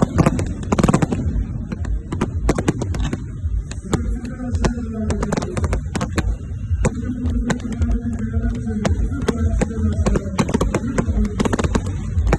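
Fireworks crackling and popping in rapid, irregular cracks over a low rumble, with voices over it.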